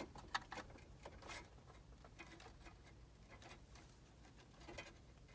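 Faint clicks and light plastic rattling of wiring-harness connectors and wires being handled and pushed into the back of a car stereo head unit. A few sharper clicks come in the first second or so, then sparser ones.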